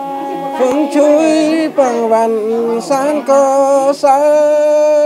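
Women's voices singing a slow song in long held notes that slide from one pitch to the next.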